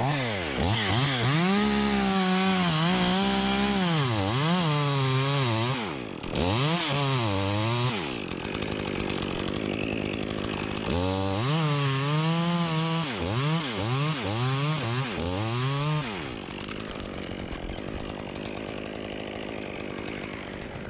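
Stihl two-stroke chainsaw running at full throttle as it cuts through a tree trunk, its engine pitch repeatedly dipping and rising as the chain loads in the cut. It cuts in two long bursts with a lull between, then runs quieter for the last few seconds.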